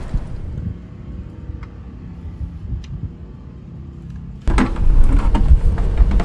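Low outdoor rumble with a few faint clicks, then from about four and a half seconds in, a much louder rumble with several knocks as a plastic bucket is handled and set under the outboard's lower unit.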